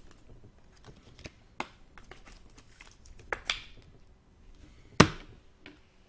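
Trading cards and plastic card holders being handled on a table: scattered light clicks and rustles, with one sharp knock about five seconds in.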